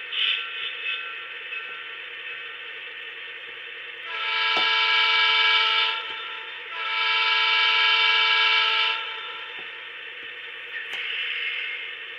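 Sound decoder in an HO-scale Atlas Gold GP40-2 model locomotive, playing a diesel's chime air horn through its small speaker: two long blasts of about two seconds each, then a shorter, quieter one near the end. Under the horn runs the steady recorded idle of the diesel engine.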